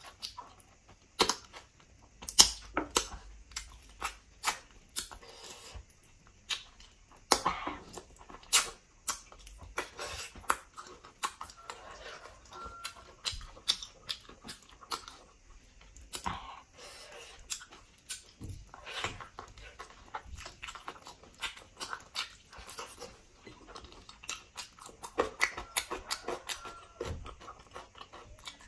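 Close-up eating sounds of pork leg being chewed: wet chewing and sharp, irregular mouth clicks throughout.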